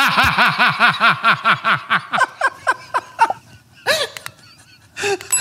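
A man laughing hard in a fast, even run of "ha-ha" pulses that slows and dies away about three seconds in, followed by one short laugh near the four-second mark.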